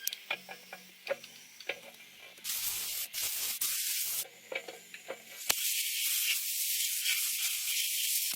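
CNC lathe machining: scattered light clicks and ticks at first, a burst of hiss around the middle, then a steady hiss from about five and a half seconds in.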